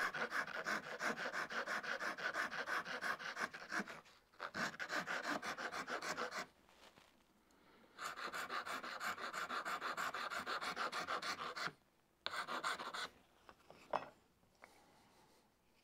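Wood rasp filing the edge of a small wooden disc in quick back-and-forth strokes, tapering the bottom board of a shrink pot. The rasping comes in several runs broken by short pauses, and ends with a single knock about fourteen seconds in as the rasp is set down on the bench.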